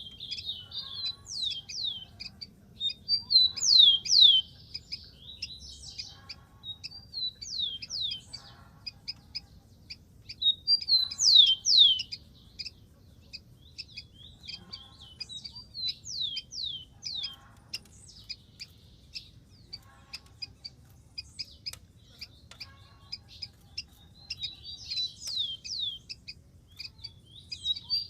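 Rufous-collared sparrow singing: short songs of a few clear whistled notes that slur steeply downward, repeated every couple of seconds, loudest about four seconds in, near the middle and at the end.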